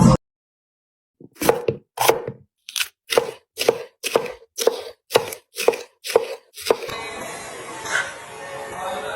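Knife chopping food on a cutting board: about a dozen sharp, evenly spaced chops, roughly two a second, then they stop.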